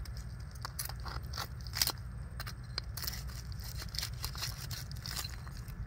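An iron hook prying at a clump of oyster-encrusted roots: irregular sharp clicks and scrapes of metal on shell, loudest just under two seconds in, over a low steady rumble.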